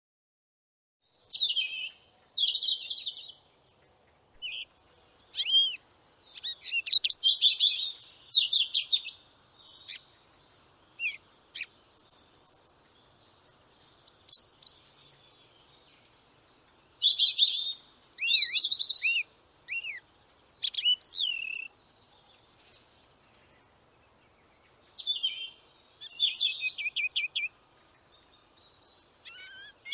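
Bald eagle calling: bouts of high-pitched rapid chittering notes mixed with thin, falling whistles, repeated several times with pauses between.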